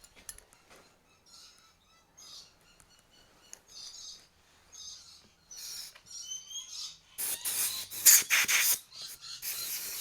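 Air blown hard in short bursts through the Stihl 009L chainsaw's gummed-up oiler line and passage, a rough hiss starting about seven seconds in and coming in two spells. Faint high chirps come before it.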